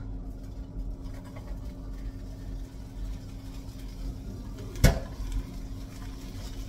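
Cookware being handled on an electric stove while broccoli is tipped into a frying pan, under a steady low hum. One sharp clank of metal cookware about five seconds in is the loudest sound.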